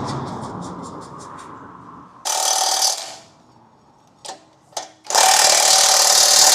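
Ratchet wrench clicking quickly as the front axle nut is run on, then two loud bursts of a power tool tightening, the first about a second long and the second about two seconds.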